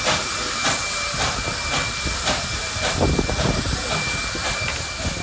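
Steam locomotive 5917, a D59 class 2-8-2, working slowly with about two exhaust chuffs a second over a steady hiss of steam. A thin, steady high-pitched tone runs through the hiss.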